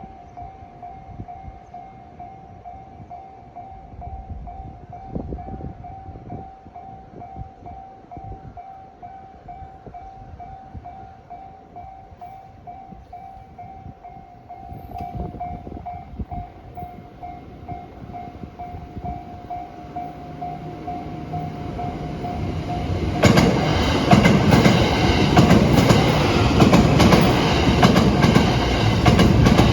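Japanese level-crossing warning bell ringing with its steady repeating electronic clang while a train's rumble slowly grows. About three quarters of the way through, a Thunderbird limited express passes close by, and the loud rush and clatter of its wheels on the rails drown out the bell.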